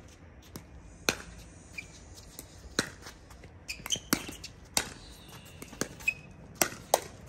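Paddles striking a plastic pickleball back and forth in a fast rally: sharp pops at irregular intervals, with two in quick succession near the end.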